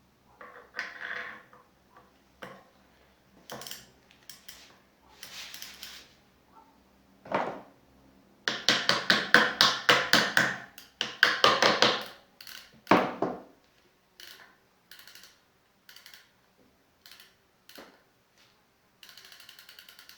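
Hammer blows on a driving tool, seating the sealed driver into a BMX rear hub. Scattered knocks at first, then a fast run of blows for about four seconds in the middle, then lighter single taps.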